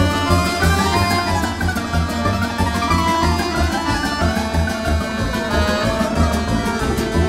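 Background music with a steady beat and a melody over it.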